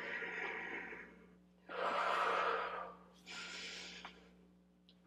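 A woman's paced exercise breathing during a Pilates double leg stretch: three audible breaths of about a second each, the middle one loudest.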